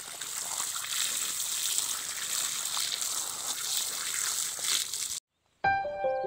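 Water from an irrigation hose pouring onto feet and muddy ground, a steady splashing rush that cuts off suddenly about five seconds in. Music starts just before the end.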